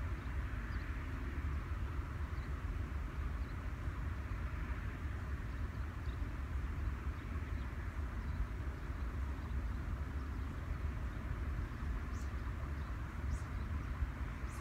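Steady outdoor background noise with a heavy low rumble and a faint hiss above it. A few faint, short, high-pitched sounds come near the end.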